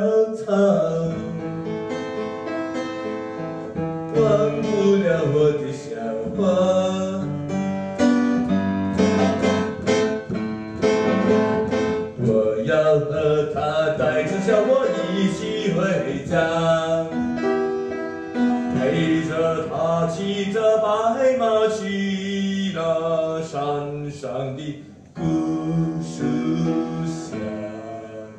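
A man singing while accompanying himself on the piano.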